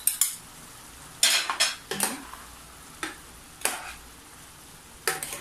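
Metal spoon scraping and stirring in a square nonstick pan as canned green peas are mixed into a simmering tomato-based stew. It makes several separate scrapes, the loudest about a second in.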